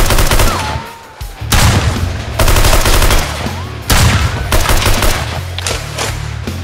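Rapid automatic-gunfire sound effects in several bursts over a music track with a heavy bass line; the firing breaks off briefly about a second in and again near the end.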